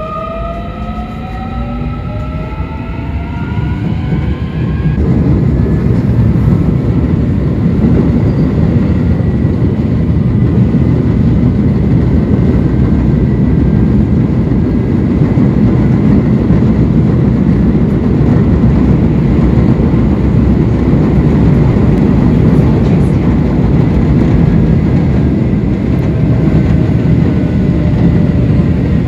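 Electric commuter train pulling away: its motors' whine climbs in pitch over the first five seconds or so. It then runs at speed with a loud, steady rumble of wheels on the track.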